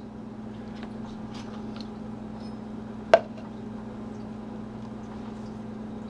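An axe and its snap-fastened leather sheath being handled, with faint small ticks and one sharp click about three seconds in. A steady low hum underneath.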